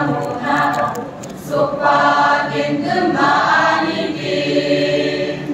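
A choir of young voices singing together in held, sustained notes; a last long note is held and the song ends near the end.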